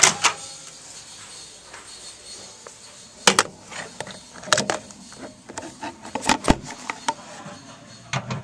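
Scattered sharp knocks and clicks, a few in quick clusters, over a faint steady background.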